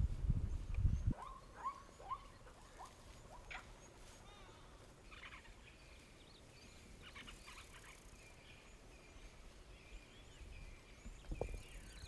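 Faint bush ambience: scattered chirps and short calls of small birds, with a thin, steady high note from about five seconds in. A low rumble fills about the first second.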